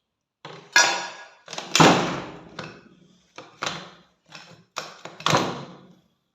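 Metal rifle parts being handled and knocked together: about ten sharp clanks in uneven groups, some ringing briefly, the loudest two in the first two seconds.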